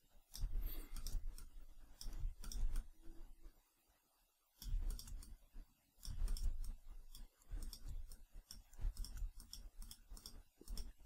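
Computer mouse clicking irregularly, again and again, with low rumbling as the mouse is pushed around, during clone-stamp retouching.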